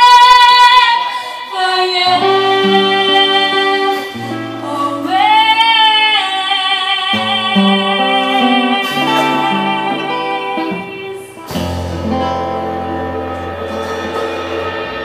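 Live folk band: a singer's melody over strummed acoustic guitar, opening on a long held note, with a rising slide about five seconds in. About eleven and a half seconds in, a full chord is struck that rings and slowly fades, like a song's closing chord.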